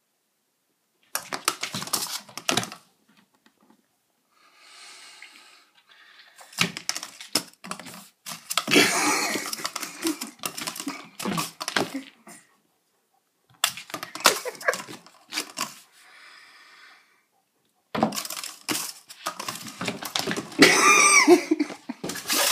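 Cardboard toilet-paper tube being batted by a cat's paw, knocking and scraping on a wood floor in bursts of rapid clatter. Fainter breathy sounds come between the bursts, and a short wavering vocal sound comes near the end.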